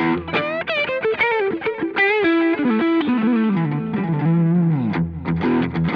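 Alvarez AAT33 semi-hollow electric guitar played through an AMT Pangaea CP100 IR loader on a preset imitating a Fender amplifier, recorded direct to the interface. It plays a melodic phrase of single notes with bends and slides, then a few struck chords near the end.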